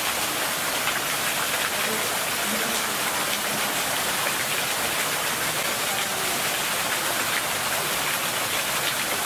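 Steady hiss of falling or running water at an even level, with faint short high chirps scattered through it.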